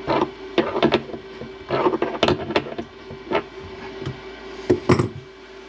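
Adjustable wrench clicking and knocking on a braided faucet supply-line nut and against the particleboard underside of a countertop as the fitting is snugged up and the wrench is taken off: a run of separate sharp clicks and clunks, the loudest near the end.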